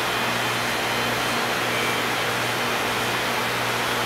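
Caliber .380 ACP hair clipper running with a steady, even hum while it trims the edge of a thick beard.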